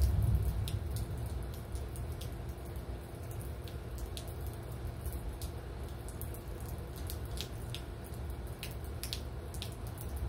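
Rain tapering to drips: scattered raindrops and drips ticking irregularly, a few every second, over a steady low rumble that swells briefly at the very start.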